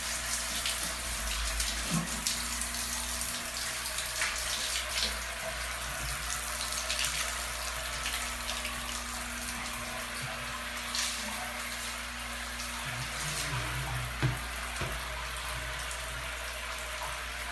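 Water running steadily into a bathroom sink and splashing over its edge onto a tiled floor.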